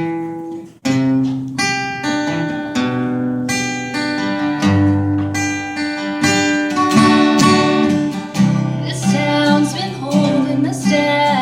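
Acoustic guitar strumming the opening chords of a country song, with the bass notes stepping under the strums; a voice comes in singing near the end.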